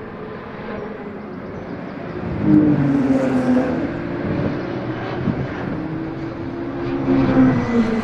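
Racing car engines running at speed on a circuit, their pitch rising and falling as the cars pass. The sound gets louder about two and a half seconds in and again near the end.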